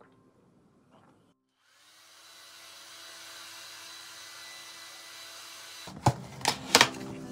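Hand-held hair dryer blowing steadily for about four seconds, starting about two seconds in. Near the end, a cardboard box being opened by hand: several sharp snaps and rustles of cardboard, with soft music behind.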